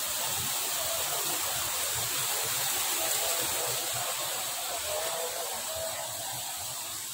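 Steady rush of water at a spring-fed pool, an even noise with a faint high hiss above it.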